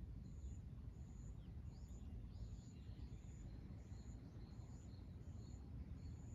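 Outdoor ambience: scattered bird chirps and a high, short call repeating evenly about every three quarters of a second, over a faint steady low background noise.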